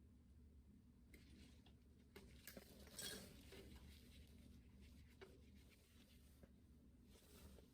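Near silence: room tone with a low hum and a few faint small clicks and rustles of thermostat wires being handled, the clearest about three seconds in.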